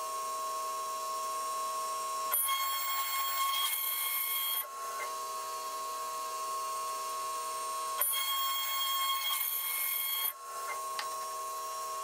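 CNC milling spindle whining steadily as a small end mill cuts brass plate under cutting fluid, with several fixed tones. Twice, for a couple of seconds each, a harsher hissing cutting sound rises over the whine.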